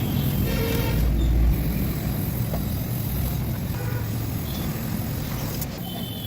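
An engine running with a steady low rumble, briefly a little louder about a second in.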